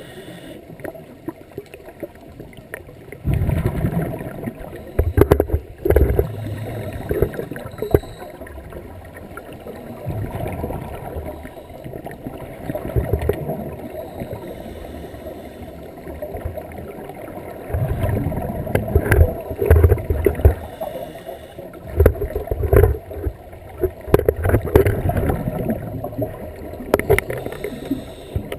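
Scuba diver's exhaled bubbles gurgling out of the regulator underwater, in bursts of a couple of seconds, one per breath, with calmer stretches between breaths.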